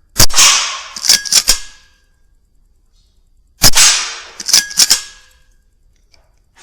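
Two shots from a Weihrauch HW100 .22 air rifle, one near the start and one about three and a half seconds later. Each is a sharp crack with a decaying echo, followed about a second later by a quick pair of sharp metallic clicks.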